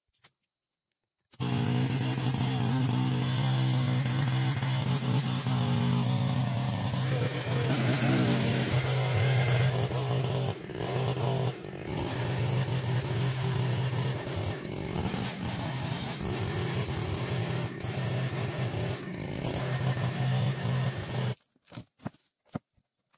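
Two-stroke chainsaw cutting steadily as it rips a log lengthwise into planks. It starts suddenly about a second in and stops suddenly near the end.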